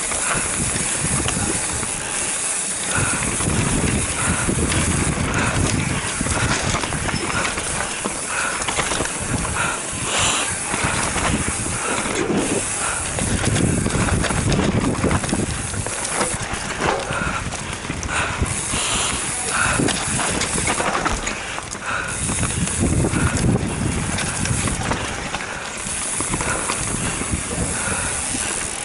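Wind rushing over a helmet- or chest-mounted action camera's microphone, mixed with the tyre and frame noise of a mountain bike descending a dirt trail, the low rumble swelling and fading every few seconds.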